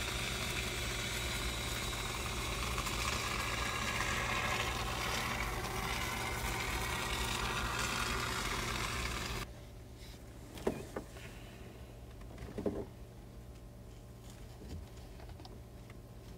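Aerosol can of Great Stuff closed-cell expanding foam spraying through its straw nozzle, a steady hiss that cuts off suddenly about nine seconds in. After that only a low hum and a couple of faint knocks remain.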